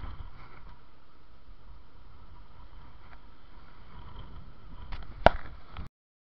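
Low rumbling wind and handling noise on a body-worn camera's microphone, with one sharp knock about five seconds in. The sound cuts off suddenly just before the end.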